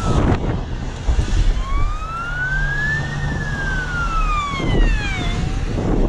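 Emergency vehicle siren wailing: one slow rise and fall in pitch lasting about four seconds, beginning to rise again near the end.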